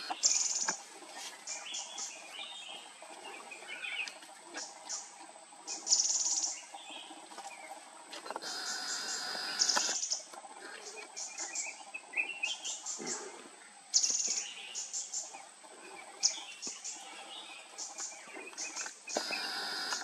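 Small forest birds chirping and calling, with several short bursts of splashing from bulbuls and a grey-headed canary-flycatcher bathing in a shallow stream.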